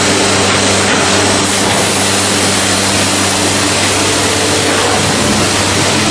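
Through-feed CNC door-making machine running: a loud, continuous noise over a steady low hum, with no change in pace.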